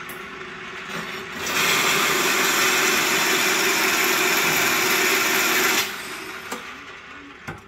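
Roller-grooving machine running with a steady hum, then a loud, even rush of metal-forming noise from about a second and a half in until nearly six seconds, as the grooving wheel is levered into the spinning conveyor roller tube. It drops back to the machine's hum when the lever is let off.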